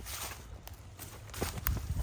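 Footsteps of a person walking through woods: a run of short scuffing steps, louder in the second half.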